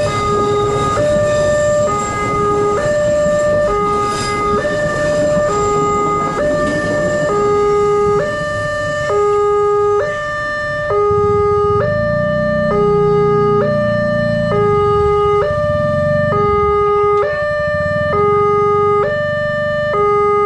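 Railway level-crossing warning alarm ringing: an electronic two-tone chime that alternates steadily between a high and a low note, about one change every 0.8 s. For the first several seconds the rumble of the passing train lies under it.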